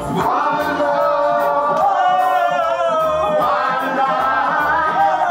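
Music with singing: long held vocal notes with a wavering pitch over a bass beat.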